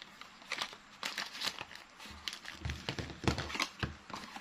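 Packaging crinkling and rustling in short, irregular bursts as accessories are taken out of an action camera's box.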